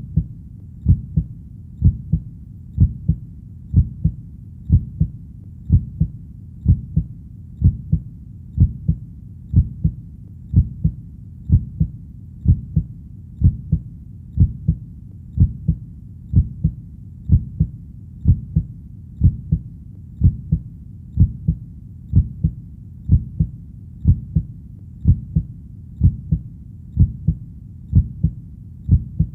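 Heartbeat playing steadily, each beat a low double thump (lub-dub), repeating evenly about once a second.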